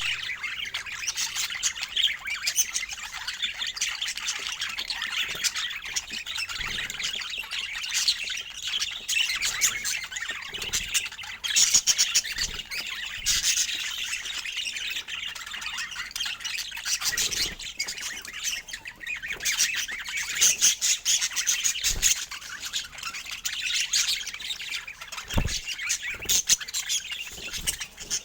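Budgerigars chattering and warbling continuously, with rapid chirps and squawks, plus a couple of brief low thumps in the last quarter.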